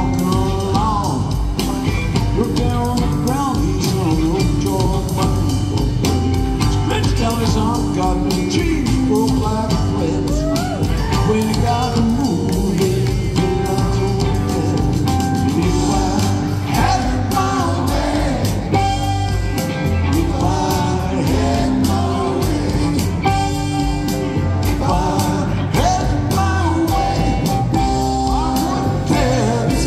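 A live rock band playing: electric guitar, drums, keyboards and pedal steel, with a lead line that bends and slides between notes.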